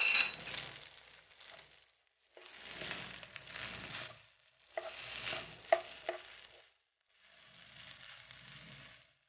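A spatula stirring and tossing fried rice in a hot nonstick pan: a scraping, rustling fry noise in four spells of about two seconds each, with a few sharp knocks of the spatula against the pan about five to six seconds in.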